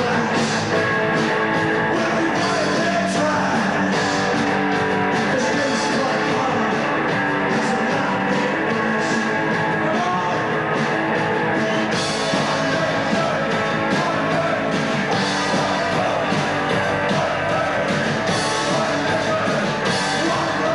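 Neo-Nazi skinhead rock song played loud, with guitars and a male singer chanting lyrics that include 'one people, one faith'.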